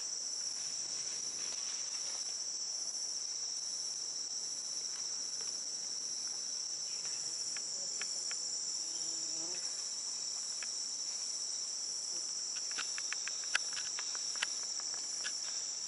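Steady high-pitched drone of a rainforest insect chorus, holding two close pitches without a break. Near the end comes a run of quick sharp clicks, two of them louder, about a second apart.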